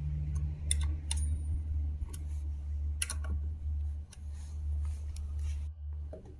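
Metal hex key seating in and turning the front disc brake caliper mounting bolts: a few sharp, irregular metallic clicks over a steady low hum.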